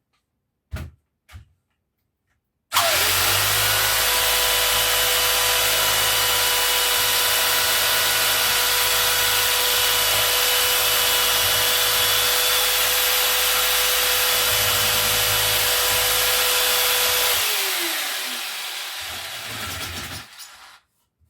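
Electric jigsaw switched on about three seconds in and running at a steady pitch, cutting a slot in wood, for about fifteen seconds; it is then switched off and winds down with a falling whine.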